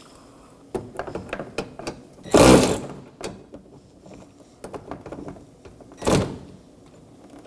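Light clicks and handling noise from hand tools and plastic door trim, with two loud thunks, the louder about two and a half seconds in and a second about six seconds in.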